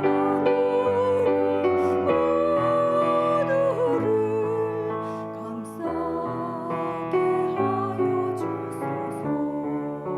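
A woman singing a slow hymn solo with vibrato over piano accompaniment, holding long notes.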